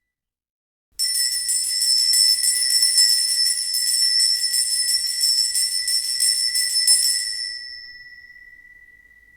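A tiny bell starts ringing suddenly about a second in and is struck rapidly and continuously with a bright, high ring. Near the end the striking stops and the ring fades slowly, leaving one high tone hanging.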